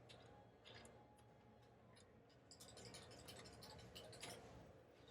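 Near silence with faint scattered metallic ticks and scrapes, mostly in the second half, from hands working the loosened T-nuts and screws of a printer-bed lift-rail guide.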